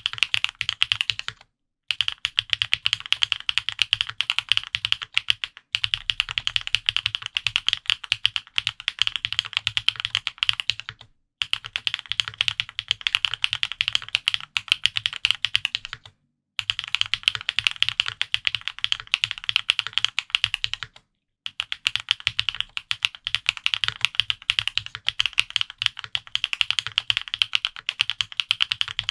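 Fast typing on a Mode65 custom mechanical keyboard with Gateron Pure Sky switches lubed with Krytox 205g0, a POM plate and GMK keycaps: rapid keystroke clacks in runs of four to five seconds, broken by brief pauses about five times.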